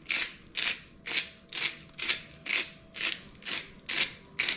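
Pepper grinder being twisted over and over, grinding peppercorns in short gritty crunches about twice a second.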